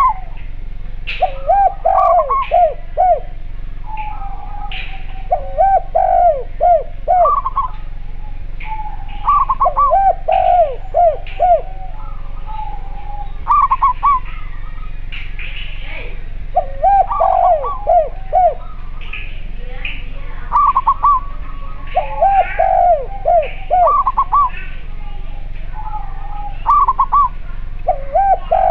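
Spotted dove and collared dove cooing in turn, each phrase a quick run of several coos. One bird's phrases sit lower and the other's higher, repeating every second or two.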